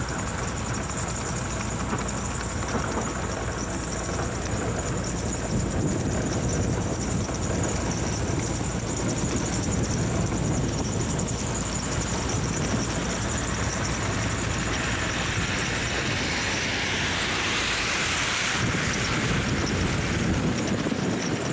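Snow-removal motor grader's diesel engine running steadily as the machine plows snow along the road. In the last several seconds a broad hiss grows over the engine as snow is pushed and thrown by the blade.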